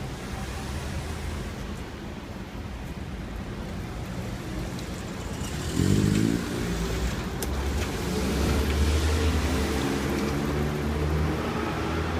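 Road traffic: a motor vehicle's engine idles low, then about six seconds in pulls away, its note rising, and runs on steadily.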